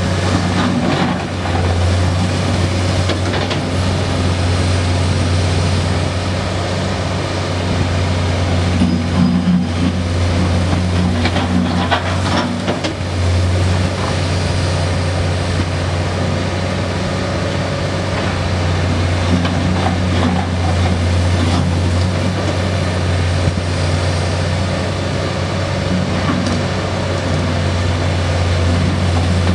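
Komatsu PC228US LC excavator's six-cylinder diesel engine running steadily under hydraulic working load, a constant low hum. A cluster of knocks and scrapes from broken concrete against the steel bucket comes about a third of the way in.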